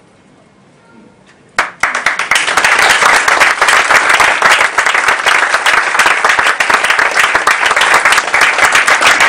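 A short hush, then an audience suddenly breaks into loud, steady applause about a second and a half in.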